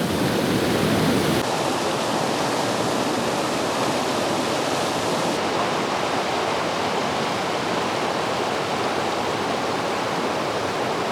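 Steady rush of flowing water, an even hiss-like roar. A deeper rumble underneath falls away about a second and a half in.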